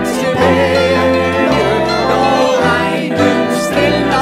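Acoustic folk band playing live: banjo over low bass notes from tuba and cello that change about once a second, with violin, trombone and organ filling out the sound.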